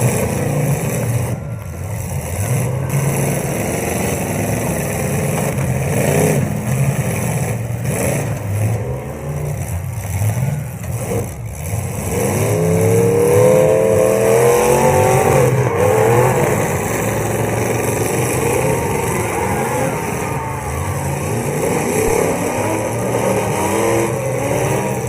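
Demolition derby cars' engines running hard and revving together, with one engine's pitch rising and falling noticeably about halfway through.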